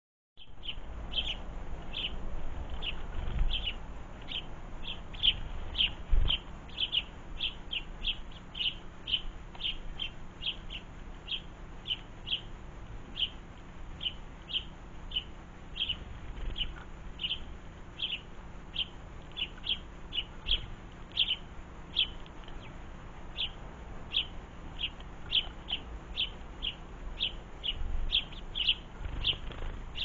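House sparrow chirping: one short chirp repeated over and over, about twice a second. A low rumble runs underneath, with a couple of dull thumps a few seconds in.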